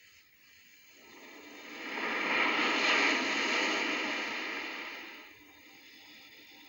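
Whooshing sound effect: a rush of noise swells up over about a second and a half, then dies away over the next three, over faint hiss.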